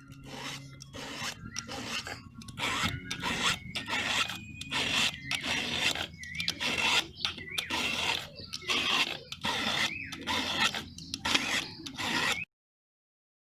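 Rhythmic hand scraping strokes on a chainsaw part being restored, about three strokes every two seconds. The sound cuts off abruptly near the end.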